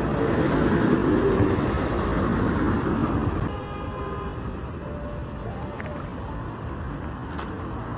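Road traffic passing through a roundabout: a vehicle goes by close for the first few seconds, then the sound drops suddenly to a lower, steady traffic hum.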